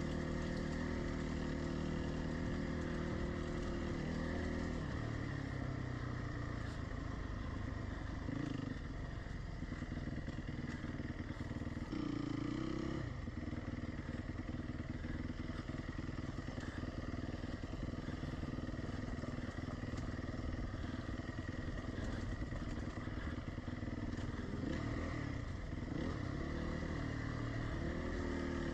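Dirt bike engine running under the rider on a trail ride, its revs rising and falling several times as the throttle is worked.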